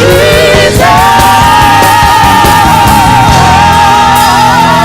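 Live gospel worship music from a church band, loud and steady, with one long high note held from about a second in, most likely a voice sustaining a shout or sung note.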